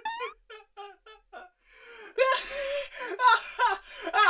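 A high-pitched cartoon character voice, not words: short repeated pitched syllables with a quick rising squeal near the start. From about two seconds in comes a louder, breathy vocal outburst.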